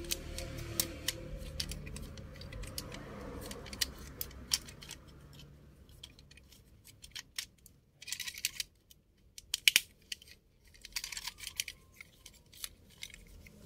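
Plastic clicks and snaps of a transforming robot toy's parts being folded by hand from robot into car mode, coming irregularly, with a quick run of sharper clicks about eight to ten seconds in.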